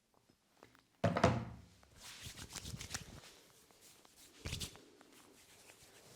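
Hands-on head massage: a loud thump about a second in, then a run of irregular rubbing and patting strokes on skin and hair, with a second, duller thump a little past the middle.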